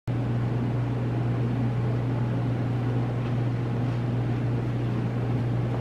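Steady low electrical hum with an even hiss of air noise over it, unchanging throughout: background machine noise in the room, with no speech.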